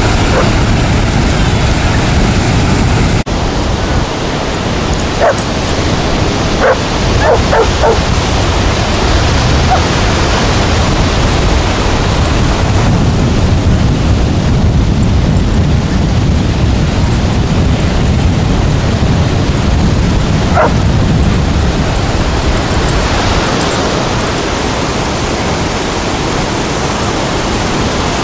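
Steady rush of ocean surf and wind on the microphone, with a few short, high dog yips: a cluster of them about five to eight seconds in and one more about twenty seconds in.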